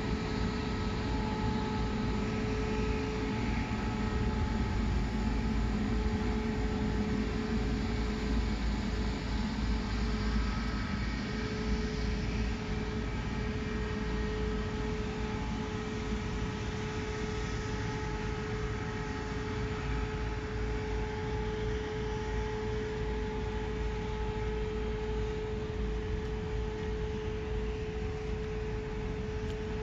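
A steady mechanical drone: a constant humming tone over an even rushing noise, holding level throughout and easing off slightly in the second half.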